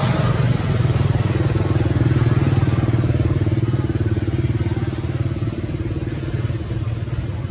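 An engine running steadily with a low, rapid pulsing hum. It grows a little louder about a second in, then slowly fades.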